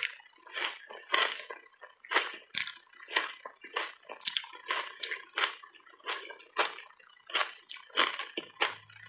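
Reshaped ice coated in matcha powder being bitten and chewed, with a run of crunches about twice a second.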